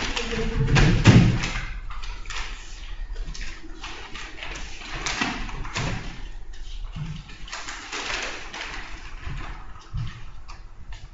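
Papers and envelopes being handled on a conference table: scattered rustling and light knocks, with a heavy thud about a second in.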